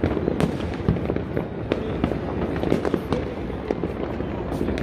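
Many fireworks going off at a distance on all sides: a dense, continuous crackling rumble of explosions, with a sharper bang standing out every second or so.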